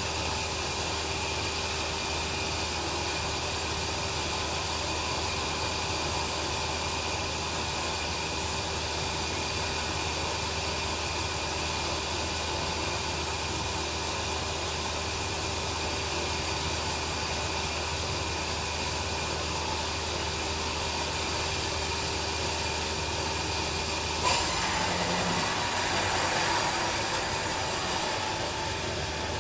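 Bandsaw sawmill running steadily with a constant machine hum and a few fixed tones. About 24 seconds in, the blade bites into a log and a louder, hissing cut lasts about four seconds.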